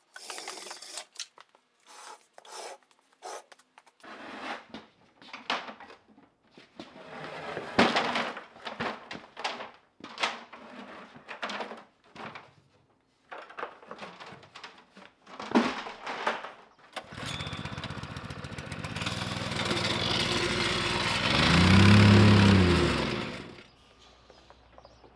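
Knocks and clatter of heavy electric motors and metal signs being lifted and set down on a concrete shop floor. Then an engine or motor runs steadily for about six seconds, its pitch swelling and falling away near the end.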